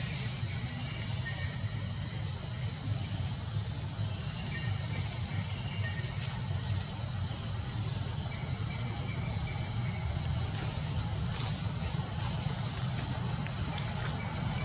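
Steady, high-pitched buzzing of an insect chorus that does not break, over a low steady rumble.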